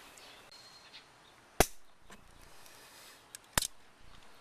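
Two sharp clicks about two seconds apart, with a fainter tick just before the second, from the lawn mower being handled.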